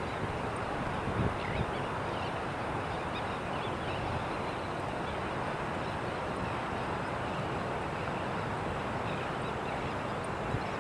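Steady outdoor background rumble with a few faint, distant bird chirps.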